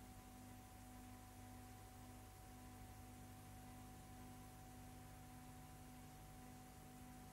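Near silence: a faint, steady hum with a thin, unchanging high tone over light hiss, and no sound from the scene.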